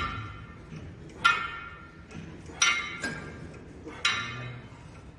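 Metal gym weights clinking once per rep, four sharp ringing clinks evenly spaced about a second and a half apart.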